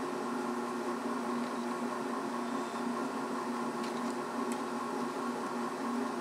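Steady machine hum of even pitch, with a couple of faint light clicks of metal parts being handled about four seconds in.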